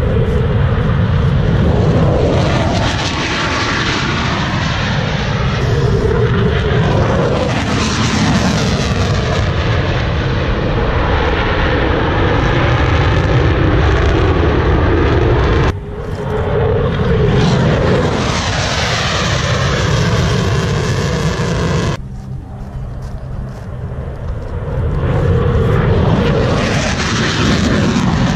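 Aircraft engine noise from an airshow display flight: a loud, continuous rushing roar whose tone sweeps up and down as the aircraft passes. It drops away suddenly twice, about 16 and 22 seconds in.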